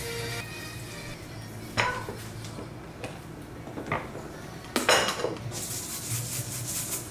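A metal spoon and glass containers clink against a glass mixing bowl and a glass jar a few times, the loudest about five seconds in. Near the end comes a rattle as sesame seeds are shaken out of a spice jar.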